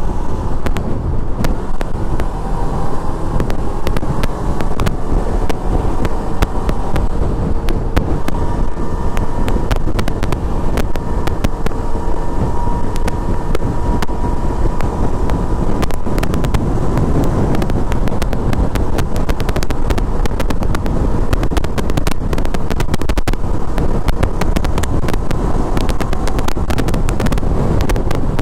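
Sport motorcycle cruising at a steady highway speed: a steady engine note under heavy wind rush on the microphone, with frequent sharp clicks.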